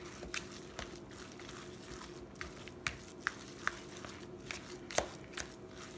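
A fork stirring and mashing tuna salad with mayonnaise in a plastic bowl: irregular clicks and scrapes against the bowl, about two a second, the loudest about five seconds in.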